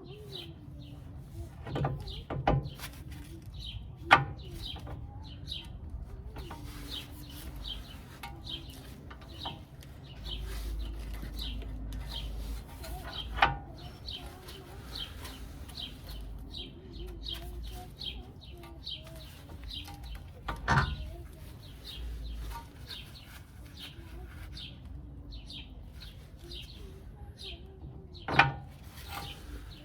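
Small birds chirping continually, broken by five sharp knocks a few seconds apart, the loudest sounds.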